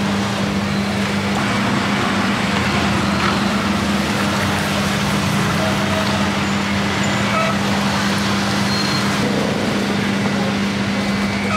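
Steady street traffic noise with a constant low motor hum running under it.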